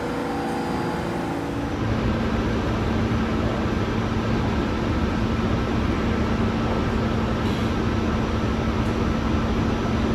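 New York City subway train running: a steady rumble with a constant low hum. The sound changes about two seconds in.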